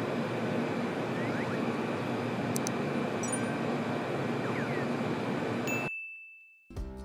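Steady, even room noise with a faint constant tone, and a short, high ding about three seconds in. The noise cuts off about six seconds in, and music starts just before the end.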